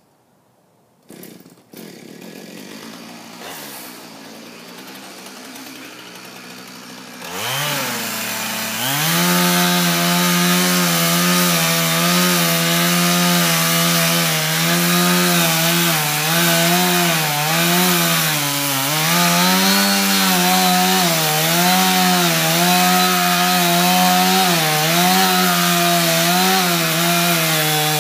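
Gasoline chainsaw idling at low level, then revved up to full throttle about seven seconds in and held there cutting into the base of a large tree trunk. The engine pitch dips and recovers repeatedly as the chain loads up in the wood.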